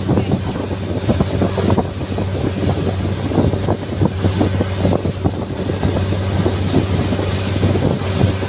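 Longtail boat engine running steadily underway, a low even drone, with wind buffeting the microphone in irregular gusts.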